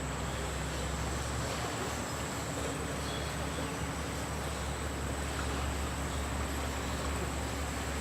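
Steady rushing noise of a fast-flowing river, with a thin, steady high-pitched insect drone over it.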